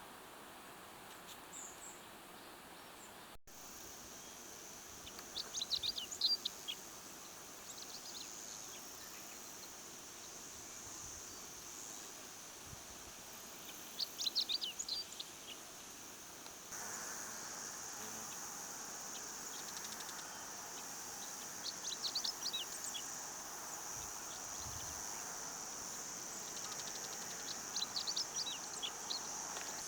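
A songbird singing short phrases of rapid high notes, four times about eight seconds apart, over a steady high-pitched insect drone.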